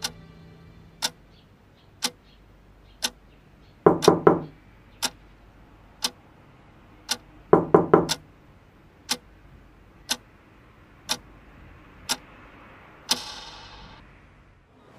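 A clock ticking steadily about once a second. Twice, about four and eight seconds in, a short burst of several quick, heavier thuds cuts in, and near the end there is a brief brighter swell that fades away.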